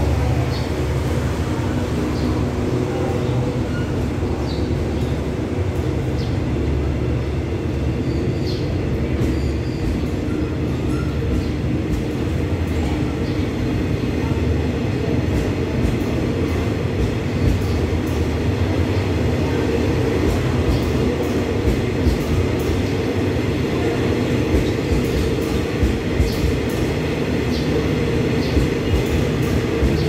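Passenger coaches of an express train rolling past the platform: a steady low rumble, with wheels clicking over rail joints more and more often in the second half.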